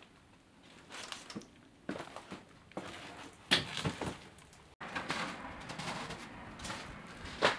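Footsteps on a floor strewn with debris and snow: irregular scuffs, crunches and knocks that start about a second in, with a sharper knock near the end.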